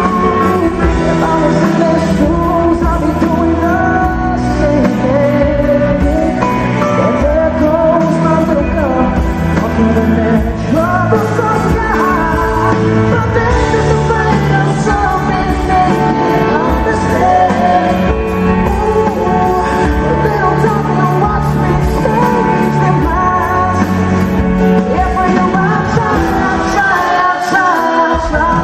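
Live concert recording of a male pop singer singing with his live band.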